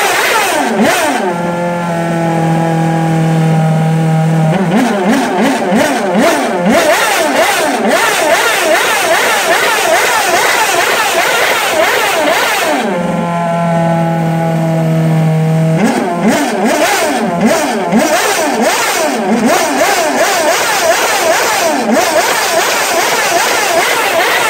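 Red Bull Racing Formula One show car's V8 engine revved loud on the spot in quick repeated throttle blips, the pitch jumping up and down. Twice it settles into a steady held note for about three seconds, once just over a second in and again about halfway through.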